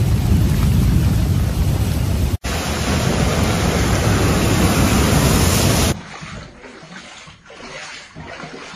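Heavy rain and floodwater in a street, a loud, dense, steady rush, cutting out for an instant about two seconds in. About six seconds in it drops to the much quieter sloshing of feet wading through shallow floodwater indoors.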